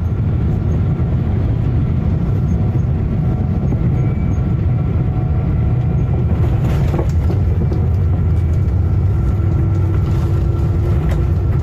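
Steady, loud low rumble of a Boeing 777 in flight after its left engine has failed from fractured fan blades, with a few faint steady tones above it.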